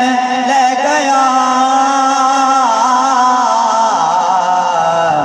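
A man singing a devotional manqabat through a microphone and loudspeakers, drawing out long, wavering notes without clear words over a steady low drone. The drone drops in pitch about four seconds in.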